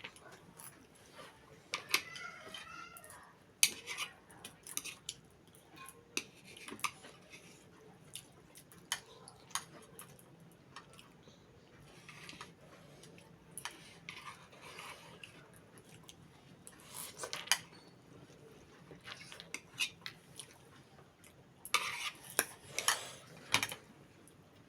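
Cutlery clinking and scraping against a dish in scattered sharp knocks while eating, with a quick cluster of clicks near the end.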